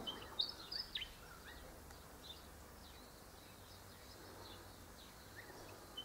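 Faint willie wagtail song: a quick phrase of high whistled notes, its 'sweet pretty creature' call, sung about half a second in, with a few scattered chirps after.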